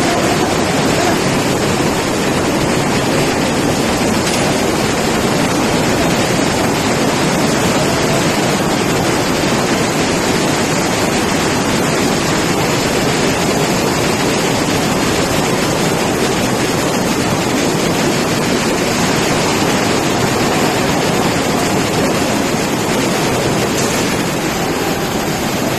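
Floodwater rushing and churning through a flooded building, a loud steady rush of noise without a break.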